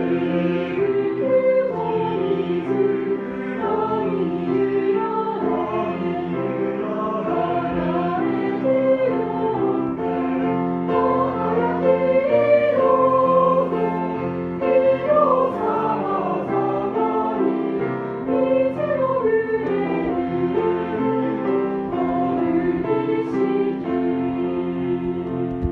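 Music: voices singing, choir-like, over steady held chords.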